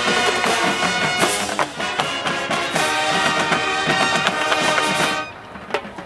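Marching band brass and percussion playing loudly, then cutting off together about five seconds in, followed by a few short sharp clicks.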